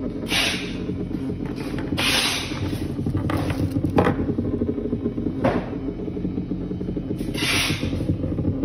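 Banana-shaped vibrator running with a steady low buzz while lying on a hard surface, kept going uncharged to test a complaint that it cuts out; several brief hisses and a click about four seconds in.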